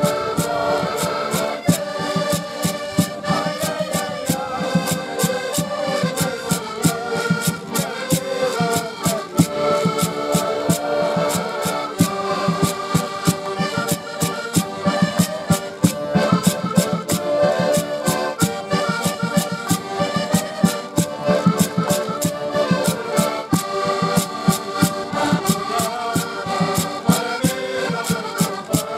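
An ensemble of diatonic button accordions playing a traditional tune together over a steady percussion beat.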